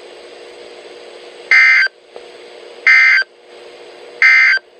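Emergency Alert System end-of-message signal on NOAA Weather Radio: three short, buzzy data bursts about 1.4 seconds apart, closing out the Required Weekly Test. A steady low hum from the receiver runs underneath.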